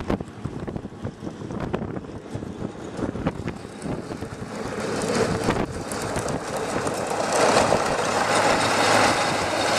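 Tracked snowcat's engine running as the machine drives past close by, growing louder over the second half.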